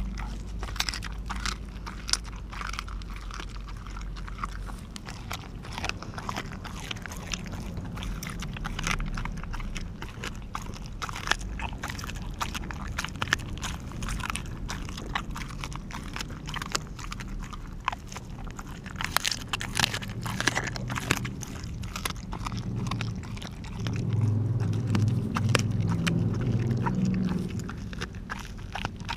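Australian Kelpie chewing and crunching through a raw turkey back, with many sharp bone cracks coming irregularly. Near the end a louder low hum comes in for about three seconds.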